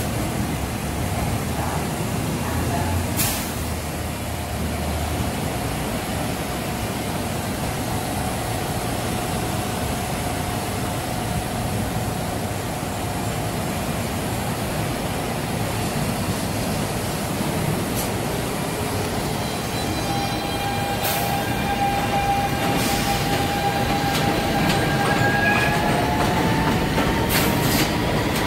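New York City subway train on an elevated track running with a steady rumble and hum. About two-thirds of the way through, its motors start a whine that rises in pitch as the train gathers speed pulling out, with a few sharp clicks along the way.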